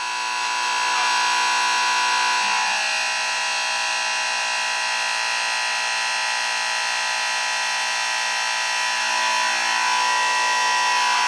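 VEVOR 2 HP oil-free air compressor running with a steady whine, filling its tank past 100 PSI toward its 125 PSI automatic cut-off.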